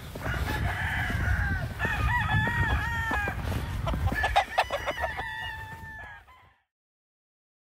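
Several gamecocks crowing in turn, their calls overlapping, over a low rumble. The sound cuts off suddenly about six and a half seconds in.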